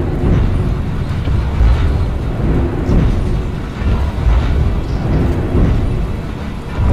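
Loud, low rumbling drone with faint wavering tones above it: the so-called 'strange sound' of the 2012 sky-noise videos.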